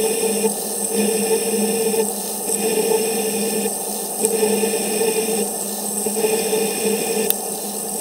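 CNC milling machine cutting under flood coolant: a steady spindle and cutter hum over the hiss of coolant spray. The cutting note changes in a repeating pattern about every one and a half to two seconds.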